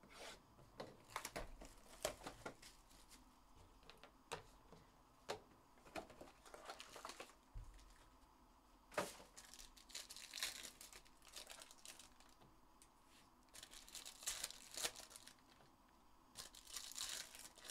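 Plastic wrapping being torn off a Panini Select trading-card box, then the cardboard box opened and its wrapped packs handled. Quiet scattered crinkles, rips and taps, with a few short runs of denser crinkling near the middle and the end.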